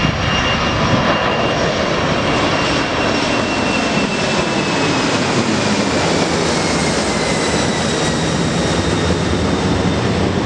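Boeing 747's four jet engines running loud and steady, with a high whine that slowly falls in pitch.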